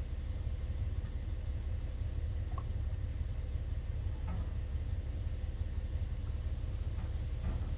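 A combine's engine idling steadily: a low rumble with a steady hum above it, and a few faint clicks.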